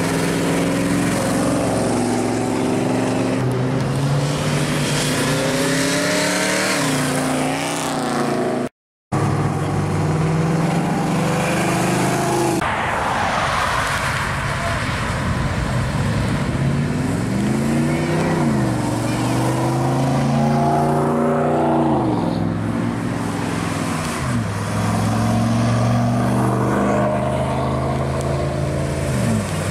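Engines of classic Chevrolets pulling away one after another: a first-generation Camaro, then a 1988–98 Chevy C/K pickup and a mid-1950s Chevy pickup. Their engine note rises and falls several times as they accelerate and shift. The sound cuts out briefly about nine seconds in.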